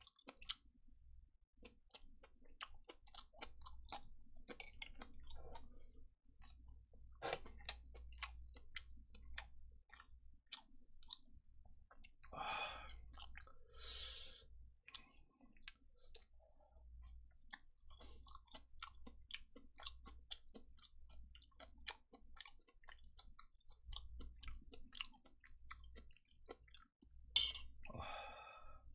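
Close-miked chewing of stir-fried kimchi and pork belly, faint, with many small wet mouth clicks. A few brief louder noisy bursts come around the middle and again near the end.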